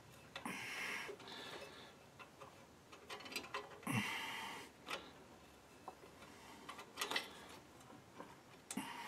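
Small clicks and short scrapes as a steel brake line fitting is worked by hand into the rear wheel cylinder of a drum brake, trying to start the threads; a louder knock comes about four seconds in.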